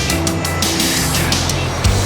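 Background music with held notes, a bass line and occasional drum hits.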